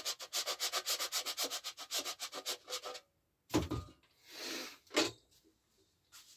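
A candle rubbed hard on a metal box grater, shaving the wax in fast, even rasping strokes, about seven a second, which stop about three seconds in. After that come a few separate knocks and a short rustle.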